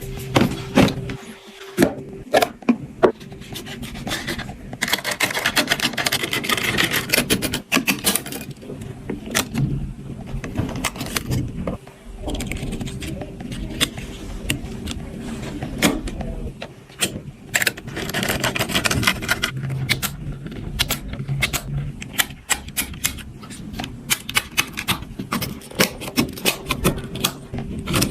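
Computer parts and packaging being handled: many sharp irregular clicks and knocks with bouts of scraping and rustling, over a faint steady hum.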